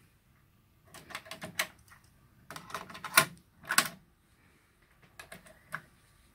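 Nakamichi Cassette Deck 1 cassette deck being loaded: a tape going in and the cassette door and transport mechanism clicking and clunking into place, in four short clusters of sharp clicks starting about a second in.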